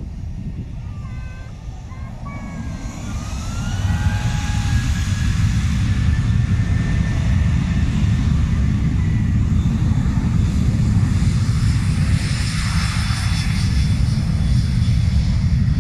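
An airliner's engines at take-off power: a deep rumble with a rising whine, getting louder about four seconds in and staying loud.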